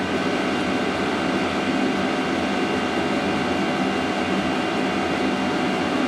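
Diesel air heater running at about half power together with a small 12-volt radial blower fan: a steady whirring rush of air with a few faint steady tones.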